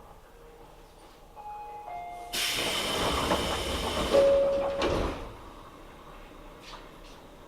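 Pneumatic sliding doors of a Tobu 9000 series commuter train working, with a loud hiss of air for about two seconds. A few short electronic tones come just before the hiss and one more near its end.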